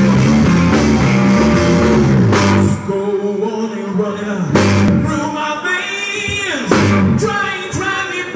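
Live rock band playing: electric guitar, drum kit and a male lead singer. A loud, dense passage for the first couple of seconds gives way to a thinner stretch of guitar and voice, marked by cymbal crashes about two, four and a half, and six and a half seconds in.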